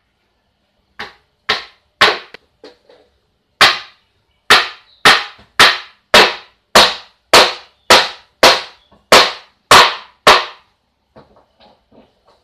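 Hammer striking the wooden frame of a miniature model house: a few lighter taps, then about a dozen sharp, loud blows a little over half a second apart, ending with faint light knocks.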